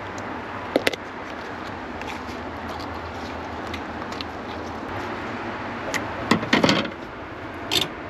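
Sharp knocks and clatters of utensils against a board or sink while a fish is being cleaned: a pair about a second in, a cluster around six to seven seconds in, and one more near the end, over a steady hiss.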